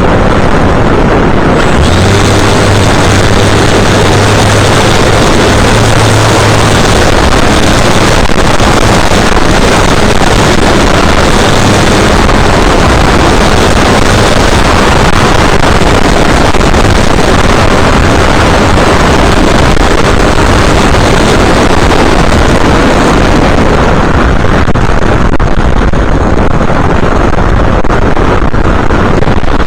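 Wind rushing over the onboard camera's microphone of an FPV aircraft in flight, mixed with the steady drone of its motor and propeller, very loud and nearly unbroken.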